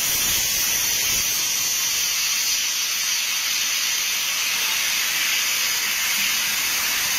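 Steady, loud hiss of steam blowing from the open cylinder drain cocks of LNER A4 Pacific steam locomotive No. 4498 Sir Nigel Gresley.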